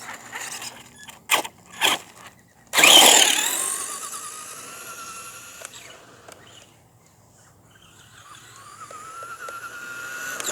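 RC car's motor whining as the car takes off hard about three seconds in, fading as it drives away, then getting steadily louder as it comes back.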